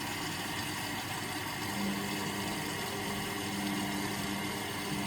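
Indesit washing machine running at the start of a Cotton 40 wash: a steady hiss, with a low hum joining about two seconds in.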